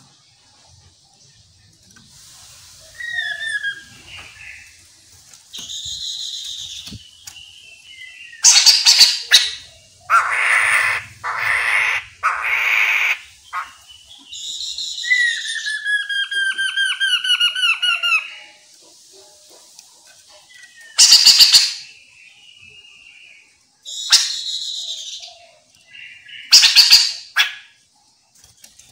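Chestnut-capped laughingthrush calling: loud harsh chattering bursts alternating with short, high whistled phrases, and a quick run of descending whistled notes in the middle.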